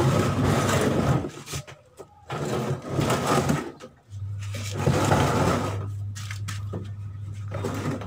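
Plastic top cover of a twin-tub washing machine being pulled and worked loose by hand, scraping and rattling in three bursts of a second or so each. A steady low hum runs beside it and drops out for a few seconds in the middle.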